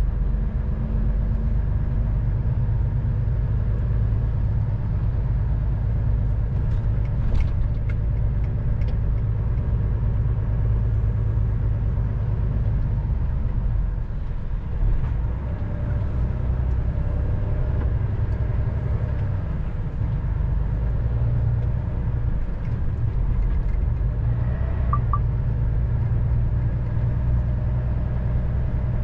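Lorry's diesel engine and road noise heard inside the cab while driving: a steady low rumble that dips briefly about halfway through.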